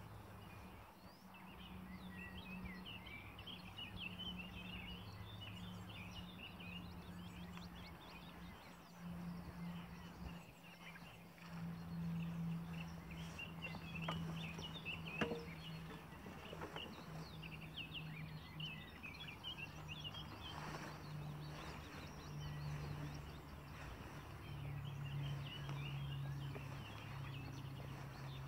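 Small birds chirping and singing over a steady low hum, with one sharp click about fifteen seconds in.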